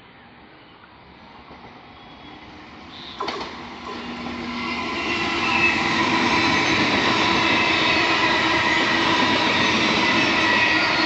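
Indian Railways EMU local train approaching at speed and running past without stopping. The sound of its wheels on the rails builds from faint to loud over the first five seconds or so, with a sharp knock about three seconds in. It then holds a steady loud rush with high steady whining tones as the coaches go by close.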